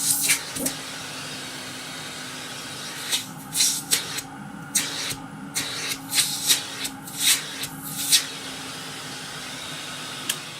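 Vintage Nilfisk GA70 canister vacuum cleaner running with a steady, quiet motor hum, overlaid by repeated short hissing rushes of air as its suction is tested at the hose.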